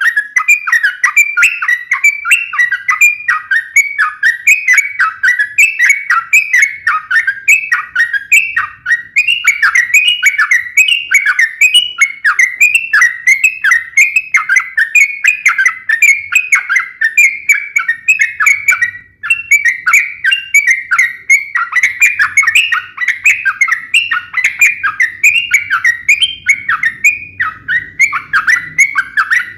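Sooty-headed bulbul (trucuk) singing a rapid, sharp chattering song of short falling chirps, about three a second, broken once briefly a little past halfway. This is the fast 'fighting' song used to provoke other trucuk into answering.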